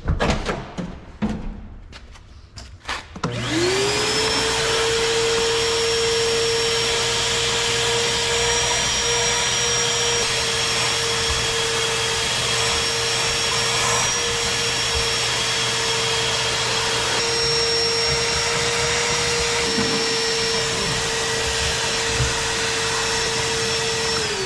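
Vacuum cleaner switched on about three seconds in, its motor spinning up to a steady high whine as it sucks dirt from a car's interior, then switched off and winding down at the very end. A few knocks of handling come before it starts.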